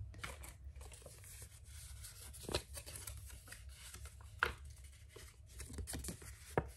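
Paper and plastic kit packaging being handled and unfolded, quiet rustling broken by a few short sharp crinkles and taps, the loudest about two and a half and four and a half seconds in.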